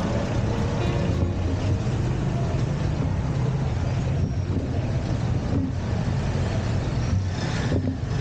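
Vehicle travelling along a street: steady engine and road noise, with wind rumbling on the microphone.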